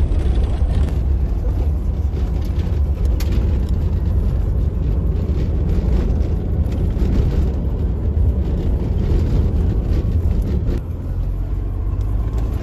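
Steady low rumble of a vehicle driving over a sandy track, heard from inside the cabin: engine and tyre noise with no speech. The rumble shifts slightly near the end.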